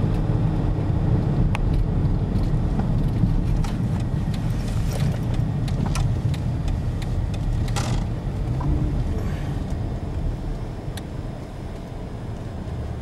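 Low rumble of a car's engine and tyres heard inside the cabin while driving in city traffic, easing off near the end as the car slows, with a few light clicks.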